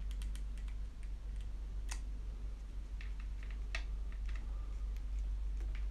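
Scattered small clicks and light taps of a screwdriver and screw working into an RC car's electric motor, with plastic kit parts handled, over a low steady hum.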